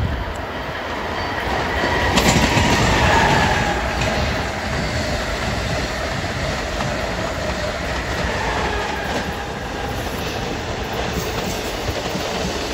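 Amtrak Acela high-speed electric train and a Northeast Regional passing at speed, their wheels clattering on the rails. It grows loudest about two seconds in, with a whine that falls in pitch as the train goes by.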